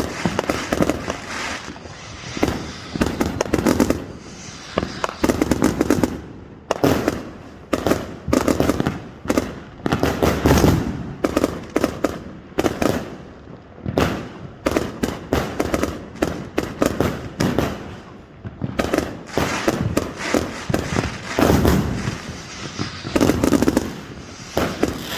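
Fireworks going off in quick succession: clusters of sharp cracks and crackling with deeper booms, one volley after another every second or two.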